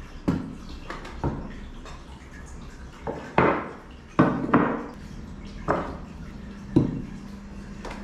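Terracotta pots and saucers knocking and clinking as they are handled and set down on a wooden table: a string of sharp separate knocks, about nine in all, the loudest in the middle.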